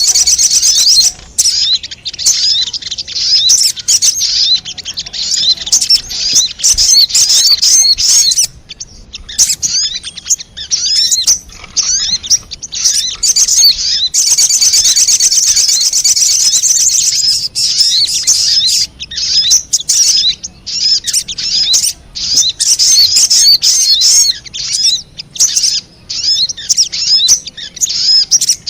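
Sogon (spiderhunter) calls played as a trapping lure: dense runs of rapid, high chirping notes, broken every few seconds by short pauses.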